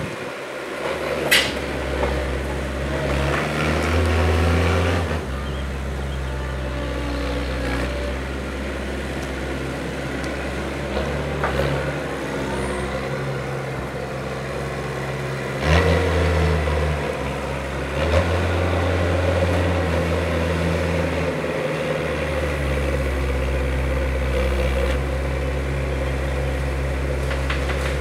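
Norcar A72 mini loader's engine running and revving up and down as it scoops, drives and lifts its bucket, with a sharp knock about a second in and another a little past halfway.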